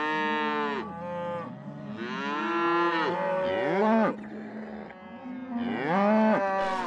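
Cattle mooing: a series of about four long, drawn-out calls that rise and fall in pitch, some overlapping.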